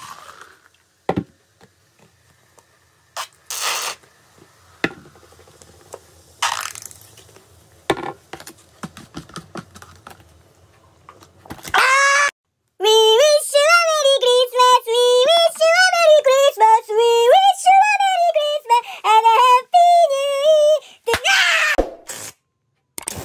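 Cola and soda being poured together into a plastic cup, fizzing faintly, with a few knocks. About halfway in, a man lets out a loud, high-pitched wailing scream that rises and falls for about eight seconds, followed by a short burst of noise.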